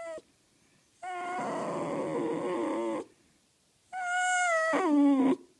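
A Jack Russell terrier giving long, drawn-out howling whines that sound like a stretched "no". The tail of one call ends at the very start, then a long wavering call runs from about a second in, and another comes near the end, which drops sharply in pitch as it finishes.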